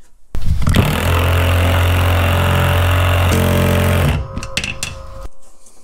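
Cordless impact driver hammering a self-tapping screw into the cast aluminum housing of a mower deck spindle, running steadily for nearly four seconds, then stopping and leaving a softer clatter for about a second.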